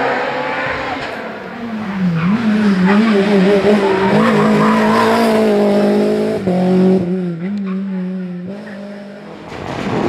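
Rally car engines at high revs on a tarmac special stage, the pitch rising and falling with throttle and gear changes as the cars pass. A second car's engine takes over partway through, and the sound drops away near the end before the next car approaches.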